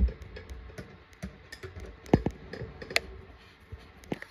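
Small clicks and knocks of parts and tools being handled on a workbench: a dull thump at the start, then scattered sharp clicks, the loudest about two and three seconds in.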